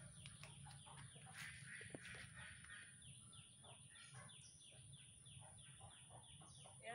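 Faint, quick series of short high chirps, each sliding downward, repeating about three to four times a second: a bird calling.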